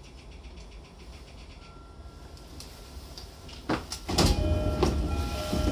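E233-7000 series commuter train's sliding doors being worked at a station stop: after a quiet, low rumble with the train at rest, a sudden clunk about three and a half seconds in, then a loud rush of door-mechanism noise with a repeating electronic door chime.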